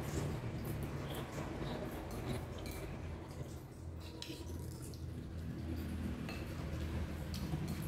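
Eating at the table: chopsticks clicking now and then against dishes, with chewing, over a steady low hum.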